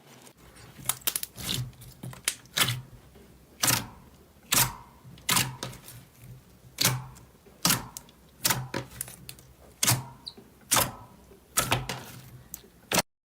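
Slime being worked by hand, giving a run of sharp pops and clicks about one to two a second, unevenly spaced. The sound cuts off suddenly near the end.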